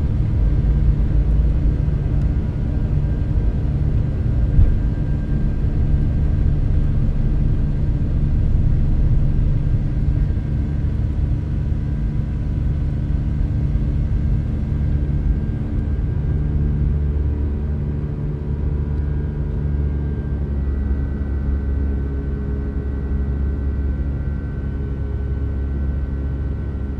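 Boeing 757 heard from inside the cabin: a steady, loud low rumble of jet engines and airflow under takeoff or climb thrust, with several steady tones riding on it. About two-thirds of the way through, the tones shift and a new higher tone joins in.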